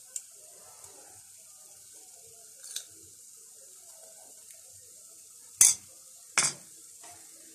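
Thin crepe faintly sizzling in a non-stick frying pan while grated coconut is spooned and spread over it, with a few small scrapes and clicks. About two-thirds of the way through, two sharp knocks of a utensil on cookware, the loudest sounds.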